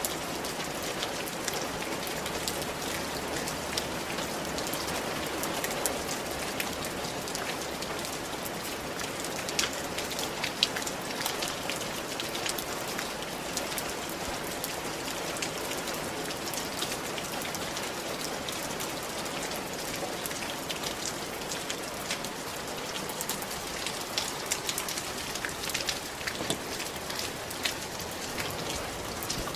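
Steady rain falling on a ceramic tiled roof: a constant hiss with many sharp drop ticks.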